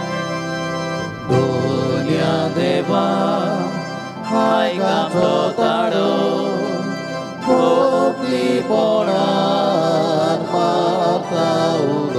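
Voices singing a short sung response to a prayer intention, accompanied by an organ. The organ holds a chord for about a second before the singing comes in, in a few phrases.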